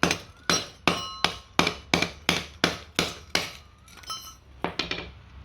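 Hammer blows striking a brass water meter body, about ten evenly paced strikes at roughly three a second, each with a short metallic ring, then a pause and two more blows near the end.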